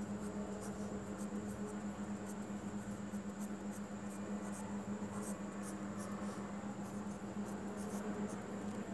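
Pen scratching faintly on paper as words are written out in short strokes, over a steady low hum.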